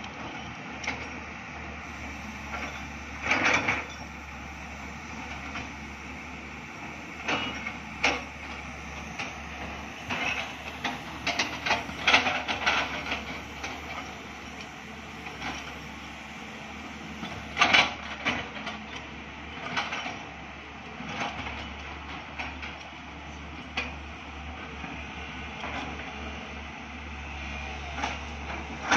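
Two crawler excavators, a JCB and a Tata Hitachi, digging: a steady diesel engine hum with sharp, irregular metallic clanks and knocks from the working buckets and booms.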